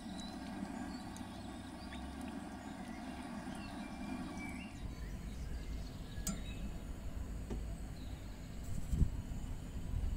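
Cooking oil pouring in a steady stream into a cast-iron skillet, stopping about four and a half seconds in. A low outdoor rumble follows, with a single sharp click.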